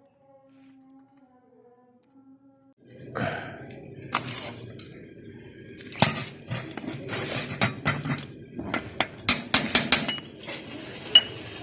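A busy clatter of sharp metallic clinks and knocks, starting about three seconds in after a faint hum.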